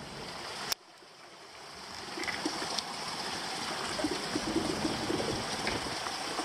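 Steady rushing noise like running water, with a sharp click about a second in, after which the rushing fades back up.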